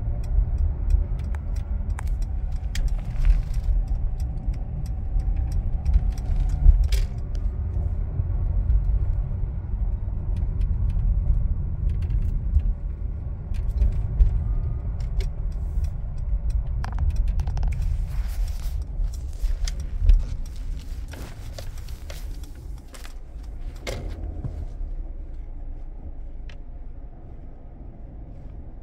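Car driving, heard from inside the cabin: a low road and engine rumble that drops off after about twenty seconds as the car slows. Scattered light clicks and jingling rattles run over it.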